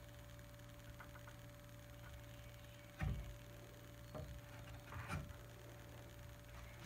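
A Lie-Nielsen 60-1/2 rabbeting block plane taking a few short, light strokes across the end of a wedged tenon to cut a chamfer, with small ticks and scrapes of the blade on the wood. A single knock about three seconds in, over a steady low hum.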